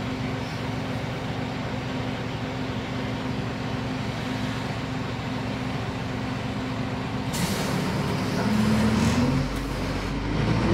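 Heuliez GX 317 city bus's diesel engine idling steadily, heard from on board. About seven seconds in comes a sudden hiss of compressed air, and then the engine revs up with a rising pitch.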